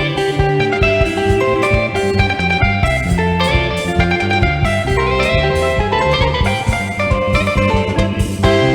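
Live praise band playing an upbeat instrumental stretch led by a melodic electric guitar over bass and drums, with no singing.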